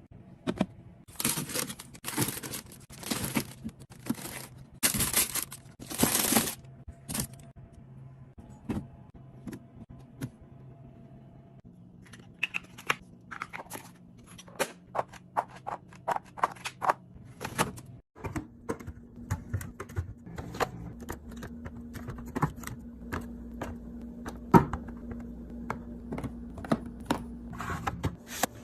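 Food containers and packages being handled and set down while a refrigerator is stocked and organized: a series of short swishes, then many light clicks, taps and knocks of plastic and glass.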